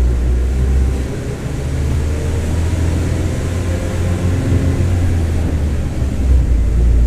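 Mercedes-Benz OF-1721 BlueTec 5 city bus under way, its front-mounted four-cylinder diesel running with a deep, steady note. The engine note eases off about a second in and comes back up near the end. A faint whine from the differential rides above it; the uploader calls the differential growling.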